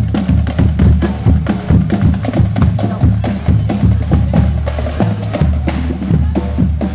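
Marching band drumline playing a street cadence: a running rhythm of snare-drum strikes over bass-drum beats.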